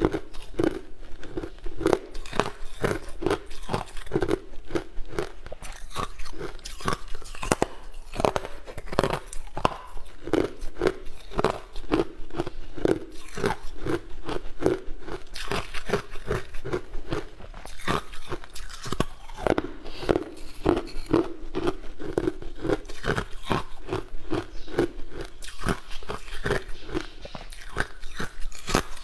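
Close-up crunching and chewing as hard, translucent white bars are bitten and chewed, in a steady run of about two to three crisp crunches a second.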